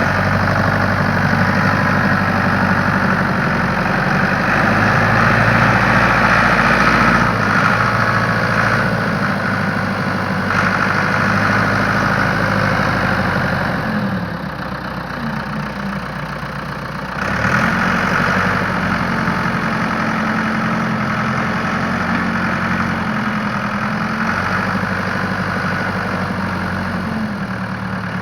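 Ford 655A backhoe's engine running as the machine is worked, its speed and pitch shifting up and down several times. It drops back a little about halfway through and picks up again a few seconds later.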